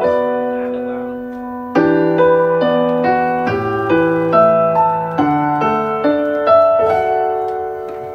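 Slow solo piano melody over held chords, each note struck and left to fade, with a new chord coming in about two seconds in.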